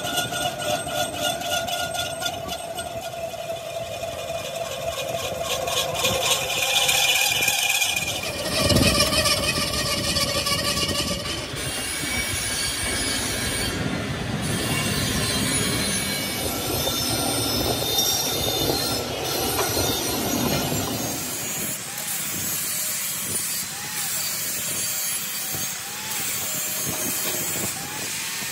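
Metal-turning lathe spinning a small steel wheel rim while a cutting tool shaves it: a continuous squeal and scraping of tool on steel, loudest around a third of the way in and easing off in the last third.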